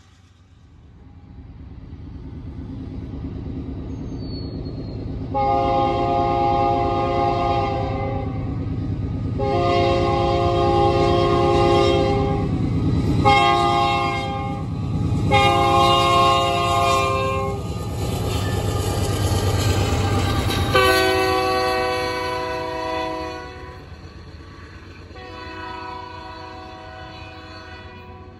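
Horn of Canadian National AC44 rebuild diesel locomotives sounding a chord in blasts: long, long, short, long, the grade-crossing signal, then after a pause two more long blasts, the last fainter. Under the horn, the locomotives' rumble builds as they approach and falls away after the fifth blast.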